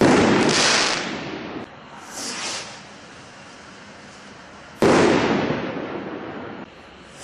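Two Standard Fireworks Maverick rockets bursting, one at the start and one about five seconds in; each is a sudden bang followed by about a second and a half of fading crackle. Between the bursts, about two seconds in and again at the very end, comes a short high hiss of a rocket launching.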